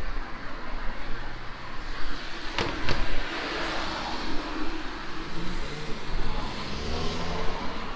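A small car driving past on a wet road, its tyres hissing on the wet surface over a low engine hum. Two sharp clicks sound about two and a half seconds in.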